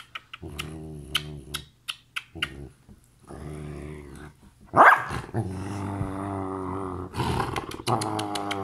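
Belgian Malinois grumbling in long, low growl-moans, several drawn-out stretches of a second or more, with a sharp rising cry about five seconds in as the loudest moment. This is an attention-demanding tantrum grumble while being kissed, not aggression. Quick kissing smacks click over it.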